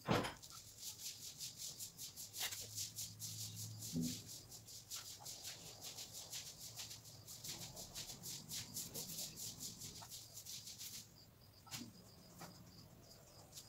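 Animal chirping rapidly and evenly at a high pitch, stopping about eleven seconds in; a sharp knock right at the start.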